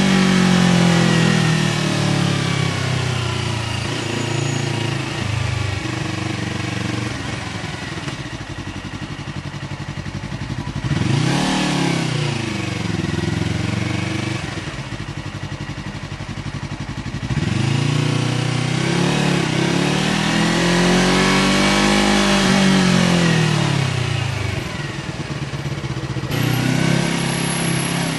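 Yamaha R3's parallel-twin engine through an SC Project aftermarket exhaust while riding. The revs fall at the start and stay low for several seconds, then rise and drop briefly. Later the engine pulls up through the revs in a longer rise, eases back down, and settles to a steady lower note near the end.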